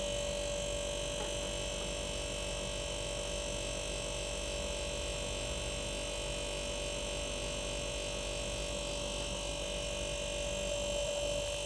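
Arçelik 5233 refrigerator compressor running with a steady hum.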